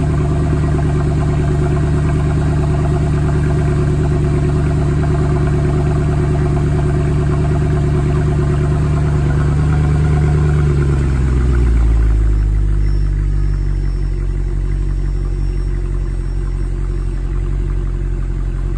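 Mercedes C63 AMG's 6.2-litre V8 running at a raised cold-start idle, heard at the quad exhaust tips. About ten seconds in, the idle drops to a lower, deeper steady note as the fast idle comes down.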